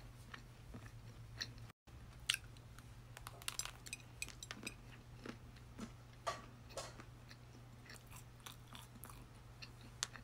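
Close-miked chewing of a doughnut topped with dark cookie crumbs: many small wet clicks and light crunches. A steady low hum lies underneath, and the sound cuts out for an instant about two seconds in.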